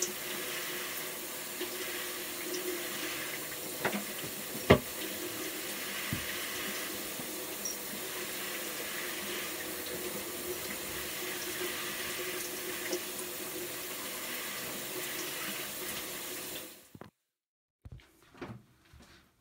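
Bathroom sink tap running steadily, then shut off suddenly near the end. A sharp knock a few seconds in stands out over the water.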